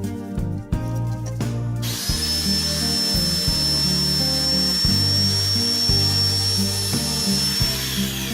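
An electric power tool runs for about six seconds with a steady high whine over a hiss, starting about two seconds in and cutting off near the end, over background music.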